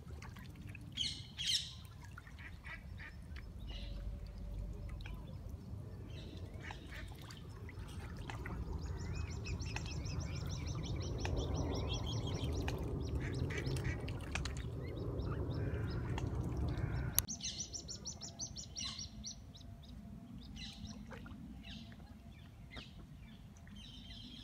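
Birds chirping and calling, with short high trills and quick runs of repeated notes. A low rumble runs underneath, swells in the middle and drops away suddenly about seventeen seconds in.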